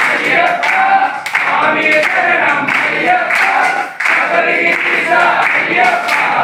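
A group of men singing an Ayyappa devotional bhajan together, with hand claps keeping time.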